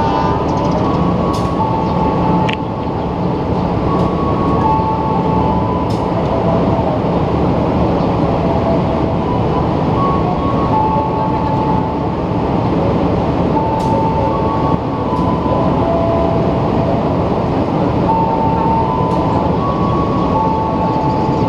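A passenger train's coaches roll along the station tracks with a steady rumble of wheels on rail. Over it, a chime of short held tones at a few different pitches repeats every few seconds.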